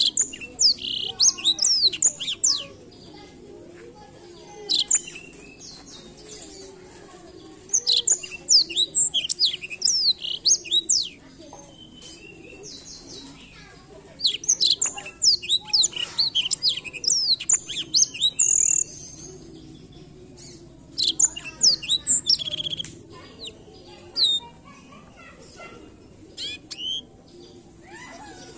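Blackthroat (black-throated canary) singing: bursts of rapid, high, sweeping twittering phrases lasting one to several seconds, separated by pauses of a few seconds.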